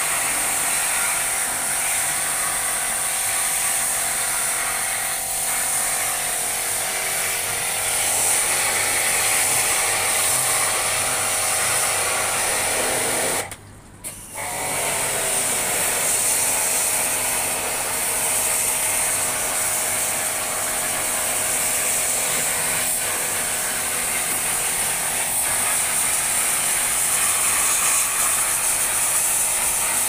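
Pressure washer running, its pump pulsing steadily while the water jet hisses from the spray gun as it washes the coil and fan of an air conditioner condensing unit with plain water. The sound breaks off for about a second near the middle.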